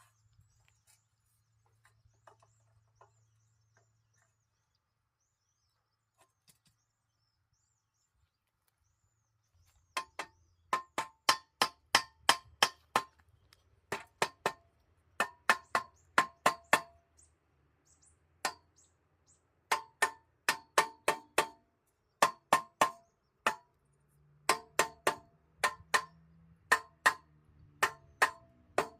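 Steel-pipe parts of a log-cutting stand being struck to knock the joints home: sharp metallic knocks that ring briefly, in quick runs of four to six with short pauses, starting about ten seconds in after a quiet stretch.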